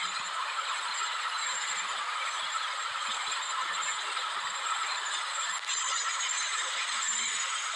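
Passenger train coaches passing close by at speed: a steady rushing noise without a break.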